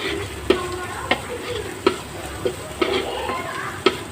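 Spice masala frying and sizzling in oil in a pan while a spatula stirs it, knocking against the pan at uneven intervals of about half a second to a second.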